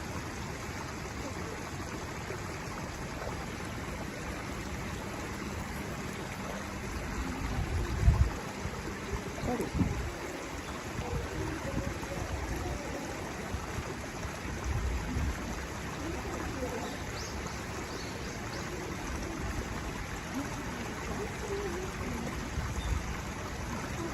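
Steady, even background hiss, with a few brief low thumps around the middle.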